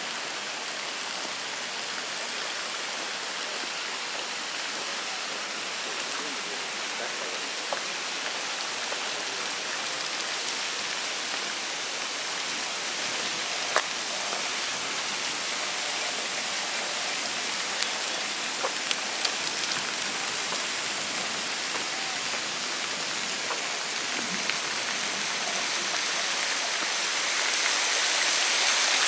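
Steady rush of splashing fountain water that grows louder near the end, with a few faint ticks.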